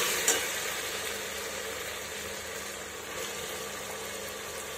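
Onions and raw mutton pieces sizzling in hot oil in a pressure cooker, a steady sizzle that gets gradually quieter, with one short knock about a third of a second in.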